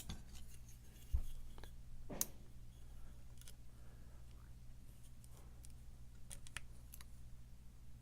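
Lock pick and tensioner working the pins of a pin-tumbler challenge lock: scattered small metallic clicks and scrapes, the loudest about two seconds in, over a steady low hum.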